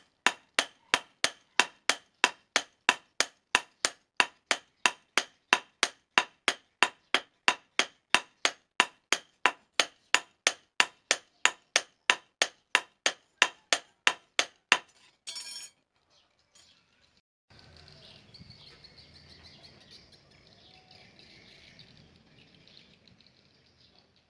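Hammer striking steel on an anvil in an even rhythm, about two and a half ringing blows a second, while forging a knife blade. The blows stop about fifteen seconds in; a brief scraping noise follows, then a faint steady hiss.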